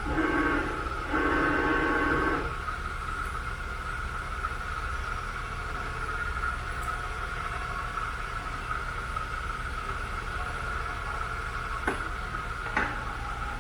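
Rambaudi MS2 vertical milling machine running under its 2.5 HP three-phase motor, a steady whine over a low hum. Two louder rushing noises come in the first couple of seconds, and two sharp clicks near the end.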